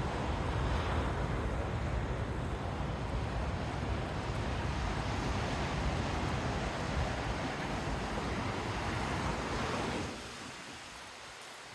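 Wind buffeting the microphone over the wash of ocean surf. Near the end the wind drops away, leaving the quieter, hissing surf.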